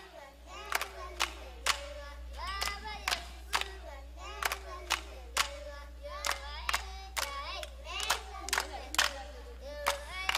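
Voices singing a song over steady hand clapping, about two claps a second.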